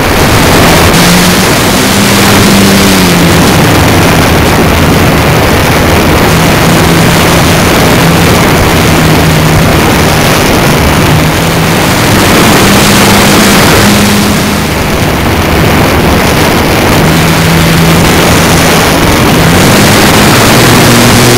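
Model Piper airplane's motor and propeller running in flight, a steady drone that rises and falls in pitch a few times with throttle changes. Loud wind rush on the onboard camera's microphone covers it.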